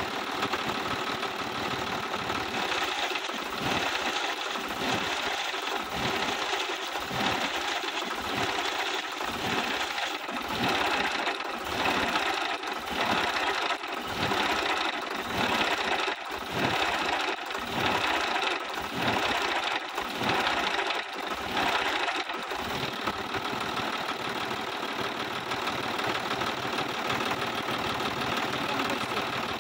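Sonalika 50-RX Supreme tractor's diesel engine running with a fast, even clatter after its head gasket replacement. From a few seconds in until a little past the middle, the sound swells and drops about once a second, then it settles back to a steady run.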